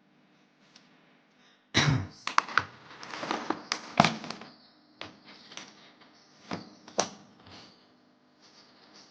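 Close-up handling noises: an irregular run of sharp taps, clicks and knocks, the loudest about two and four seconds in and again near seven seconds, as small objects are handled against a hard surface.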